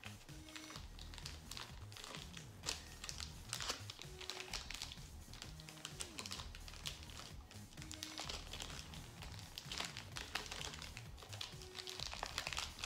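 Thin clear plastic bag crinkling and rustling in the hands as a squishy toy intestine is worked into its small opening, many short crackles throughout, over quiet background music.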